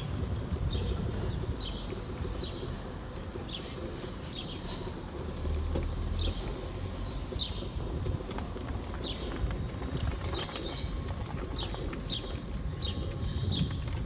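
Small birds chirping: many short, quick downward-sweeping chirps scattered irregularly throughout, over a steady low rumble.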